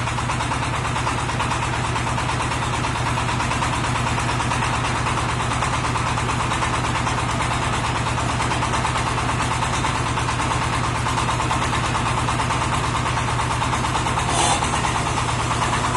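Engine of a small twin-cylinder hydraulic water well drilling rig running steadily, with a fine rapid pulsing, as its hydraulic control valves are worked. A brief burst of hiss comes near the end.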